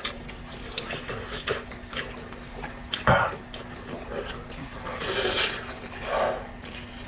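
Close-up eating sounds: a person chewing food with wet smacking and small clicks, and louder bursts about three seconds in and again around five and six seconds.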